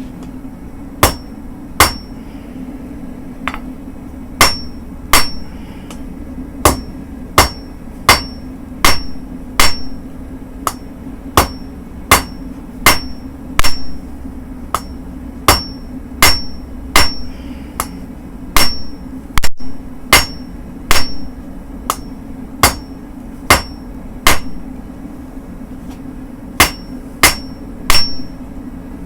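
Blacksmith's hand hammer striking steel on an anvil, a little more than one blow a second with short pauses, many blows followed by a high ring from the anvil. This is forging car leaf-spring steel into a dandelion weeder. A steady low hum runs underneath.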